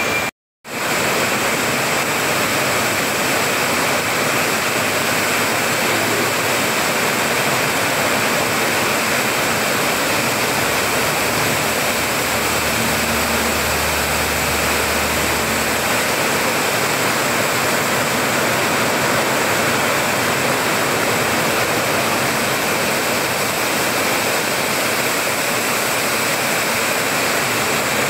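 Heavy rain pouring down in a steady, loud hiss. It cuts out briefly just after the start, and a low engine rumble from a passing truck sits under the rain around the middle.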